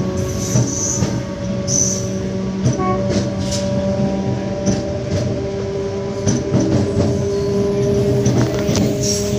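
Mainline electric multiple unit (MEMU) train running as it pulls out, heard from its open doorway: a steady electric drive hum with several held tones over continuous wheel-on-rail rumble, and scattered sharp clicks and knocks as the wheels cross rail joints and points from the loop to the main line.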